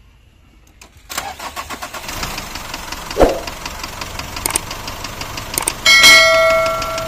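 Nissan D40 diesel engine starting about a second in and settling into a fast, even clatter of knocks: the rough running the owner puts down to faulty injectors. There is a sharp knock about three seconds in, and near the end a loud metallic ringing tone that fades over about a second.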